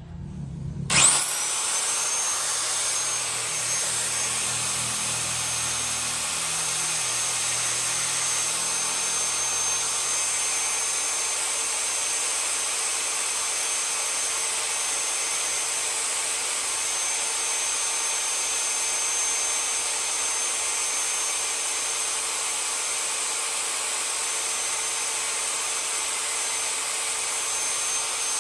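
An electric power tool's motor spins up with a fast rising whine about a second in, then runs steadily at full speed. A lower rumble underneath fades out over the first several seconds.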